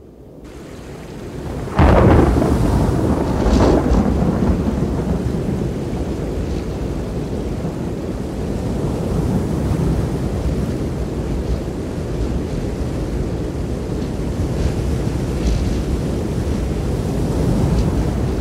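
Fast, muddy floodwater rushing: a loud, low, steady noise that comes in sharply about two seconds in, swells again near four seconds, then holds.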